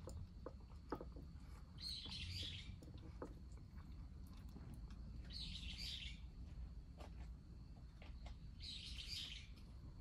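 A bird calling in three short high bursts, about three and a half seconds apart, over a low steady background rumble and faint scattered clicks of a cat eating from a bowl.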